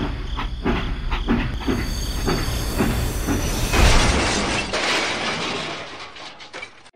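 Toy steam train chugging in a steady rhythm, about three puffs a second. About four seconds in, a loud rushing crash comes as the train runs into the model tractor on the track, then fades away.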